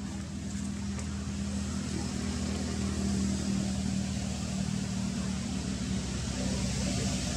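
A motor vehicle's engine running steadily, a low hum with an even hiss over it that grows slowly louder.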